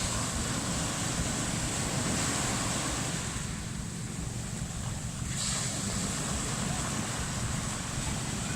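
Ocean surf washing in and out as a steady hiss, with a fresh wave surging in about five seconds in. Wind rumbles on the microphone underneath.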